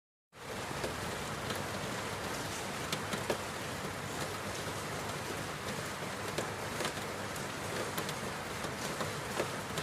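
Steady rain falling by a window, a dense hiss with scattered single drops ticking on top. It fades in sharply from silence about a third of a second in.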